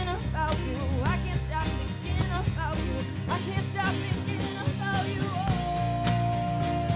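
Live rock band song: a woman sings lead over electric guitars, bass and drum kit, her melody bending up and down, then holding one long steady note for the last second and a half or so.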